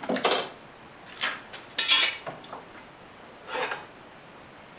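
Metal mower spindle parts and tools clinking and clattering as they are handled, four short clanks with the loudest about two seconds in.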